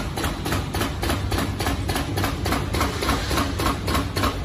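HDK-200ZSC film cutting and perforating machine at work: its cutting head strikes in a fast, even rhythm of about four clacks a second, chopping film into sheets, over a steady low motor hum.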